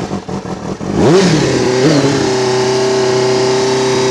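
Sport motorcycle engine just after starting, still cold: it runs unevenly at first, revs up and back down about a second in, blips briefly near two seconds, then settles into a steady fast idle.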